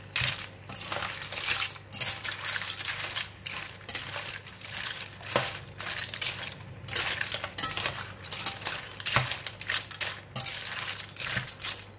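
Metal spatula stirring clams in a stainless steel wok: the shells clatter and the turner scrapes the pan in quick, uneven strokes.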